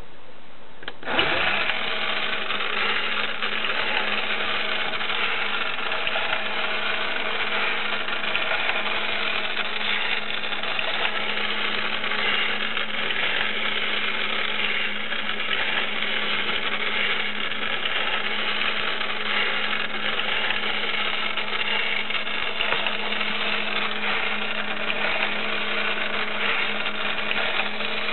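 Battery-operated tin elephant toy's small electric motor and gears whirring steadily as the trunk dips into the cup and lifts. It starts suddenly about a second in, with a steady low hum under the whir.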